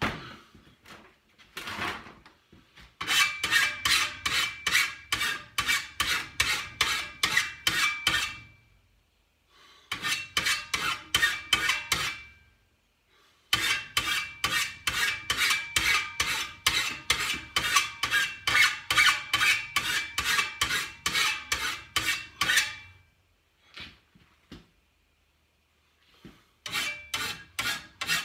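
Hand file scraping back and forth across a steel tooth of a Husqvarna 525RX brushcutter's grass blade, sharpening it, in steady runs of quick strokes about three a second. The filing stops three times for a second or more, the longest pause a few seconds near the end.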